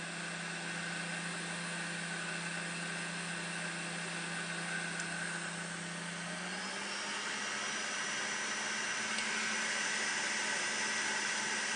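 Electric kitchen mixer motor running steadily as it mixes pastry dough of flour, egg and butter, its hum stepping up in pitch about two-thirds of the way through.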